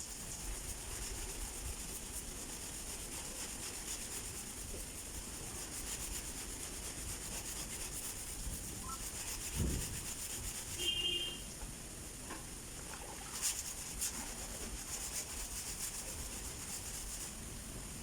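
Hand sanding of a car's body panel in preparation for paint: abrasive paper rubbing over the surface in a steady run of quick strokes. A dull thump comes about ten seconds in.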